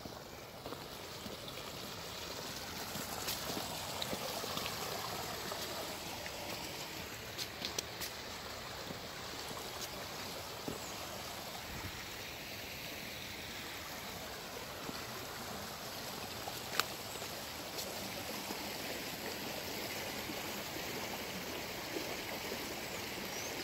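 Muddy storm runoff from heavy rain running steadily down an eroded dirt gully, with a few faint clicks.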